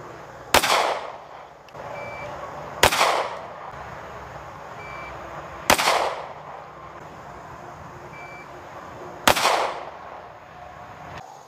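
Four single pistol shots from a SIG P320 X-Compact, spaced about two to three and a half seconds apart, each followed by a short echo. A faint short beep, as from a shot timer, comes just under a second before each of the last three shots.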